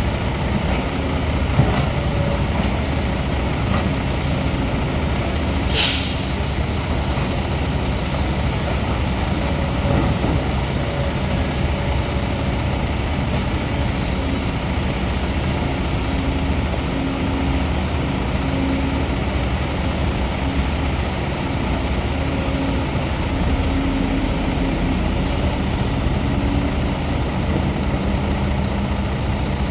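Diesel engine of heavy construction machinery running steadily under work, with a short sharp hiss of air about six seconds in.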